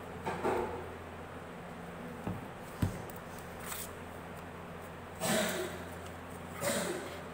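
A sheet of paper being cut with scissors and then handled: a snip of the blades through the paper near the start, two sharp clicks a little after two seconds, then two rustles of the sheet being lifted and turned, the first the loudest.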